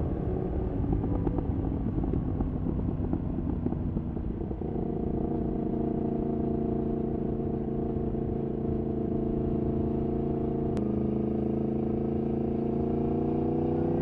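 Yamaha MT-10's crossplane inline-four with Akrapovic exhaust, heard from the bike while riding. It is rough and noisy for the first four seconds or so, then settles into a steady drone at even revs. About eleven seconds in there is a click with a small drop in pitch, and the revs begin to rise near the end.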